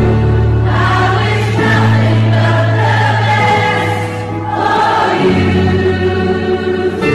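Choral music: a choir singing sustained chords over a steady low bass, laid over as a soundtrack.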